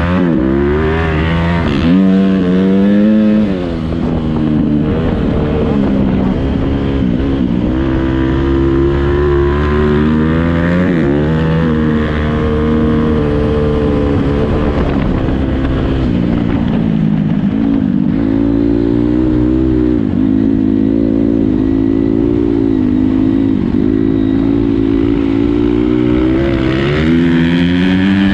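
Motocross bike engine running continuously, its pitch rising and falling again and again as the throttle is opened and closed.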